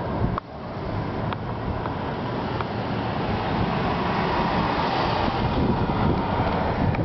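Steady outdoor background noise, a low rumble with hiss, which drops out suddenly for a moment about half a second in and swells slightly in the second half, with a few faint clicks.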